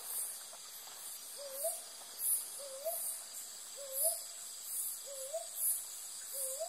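Brown boobook giving a short rising hoot, five times about a second apart. Behind it, insects call in loud rhythmic high-pitched pulses over a steady high whine.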